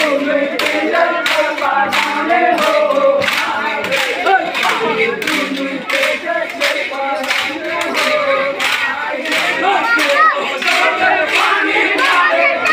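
Bamboo sticks clacking together in a steady rhythm, about three strikes a second, as dancers strike each other's sticks, over a crowd of voices chanting and shouting.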